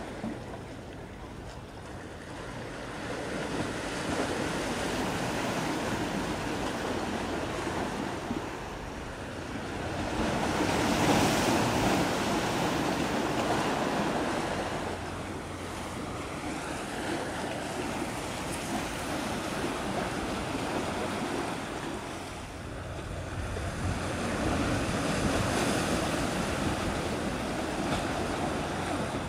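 Wind gusting across the microphone over the wash of sea waves, a steady rushing noise that swells louder about ten seconds in and again near the end.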